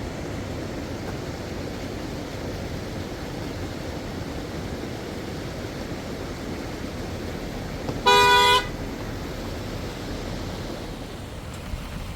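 A vehicle horn gives one short honk, about half a second long, roughly eight seconds in, over a steady rushing noise.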